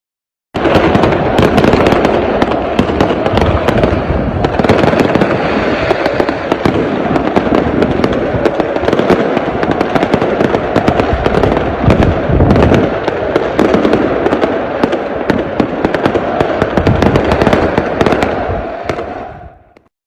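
A fireworks barrage: a dense, continuous din of rapid crackling bangs that starts suddenly and fades out near the end.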